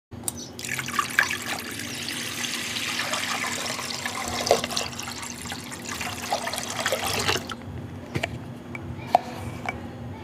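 Water pouring from a jug into a pot, a steady splashing rush that stops about three-quarters of the way through, followed by a few light clicks.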